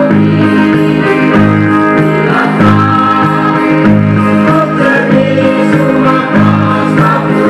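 A song: a voice singing Tetum lyrics over instrumental backing, with a bass line moving in steady steps.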